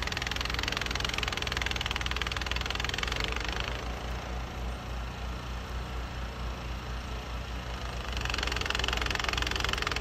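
Snowblower engine running steadily, with a hiss over it that is louder for the first few seconds and again near the end.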